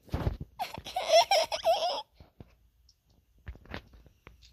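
A high-pitched giggle: a quick run of rising and falling notes lasting about a second and a half, just after a short low thump at the start. A few faint clicks follow.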